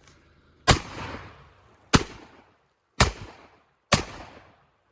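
Four 12-gauge shotgun blasts fired about a second apart, each trailing off briefly; the last one comes near the end.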